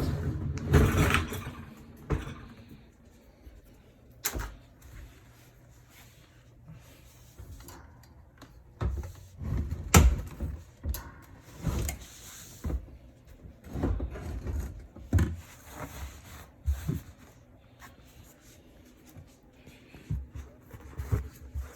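Irregular knocks, bumps and a short scrape as a dishwasher is handled and slid back into its cabinet opening, the loudest knocks about a second in and about ten seconds in.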